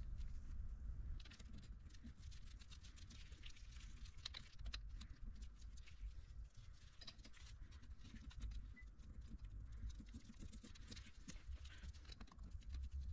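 Faint, irregular light clicks and taps of metal parts being handled as the LDA boost-diaphragm top cover is fitted onto a Bosch VE diesel injection pump.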